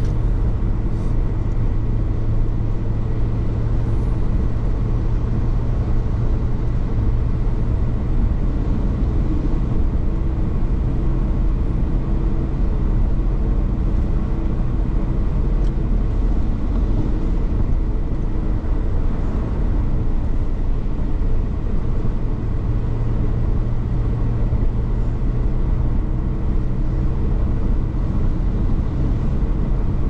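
Steady road noise inside a car cruising at highway speed: a low engine and drivetrain hum under the rumble and hiss of tyres on wet pavement, even throughout.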